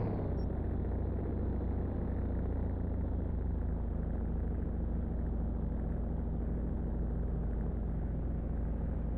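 Car engine idling steadily with a low rumble.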